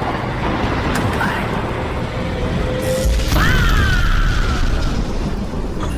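Mechanical clanking and whirring sound effects over background music. About three seconds in, a low rumble starts and a whine jumps up sharply, then slowly falls.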